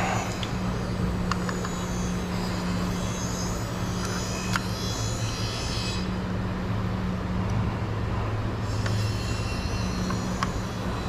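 Husqvarna 445 chainsaw's two-stroke engine idling steadily, its idle speed just turned down at the carburetor, with a few light clicks.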